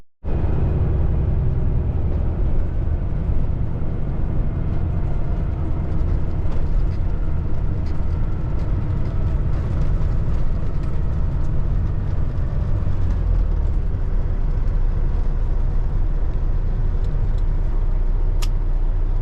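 Steady in-cab drone of a Peterbilt 579 semi truck on the road, its Cummins ISX15 diesel and road noise running evenly, with a single brief tick near the end.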